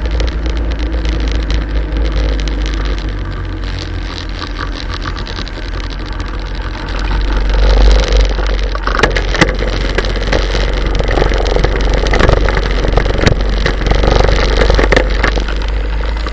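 Motorcycle riding along a road, recorded by a camera strapped to the bike: engine and road noise under heavy wind rumble on the microphone. It gets louder about halfway through, with a few sharp knocks.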